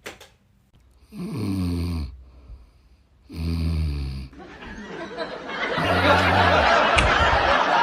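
A man snoring loudly: three long snores about two seconds apart, each lasting about a second. From about five seconds in, a loud rushing noise builds up and runs on under the third snore.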